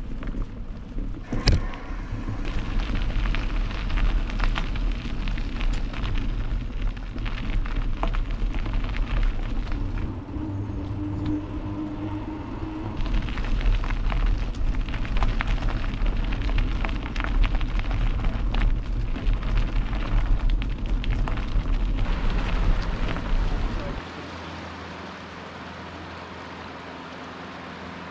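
Mountain bike riding a dirt trail: wind buffeting the microphone and the bike rattling, with sharp knocks over bumps. Near the end it gives way to the steady rush of a flowing river.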